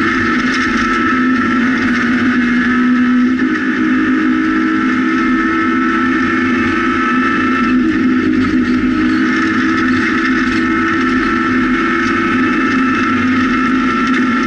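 Rally car engine held at high revs on a gravel stage, heard from inside the cabin, with gravel and tyre noise underneath. The engine pitch steps about three seconds in, then stays high and steady.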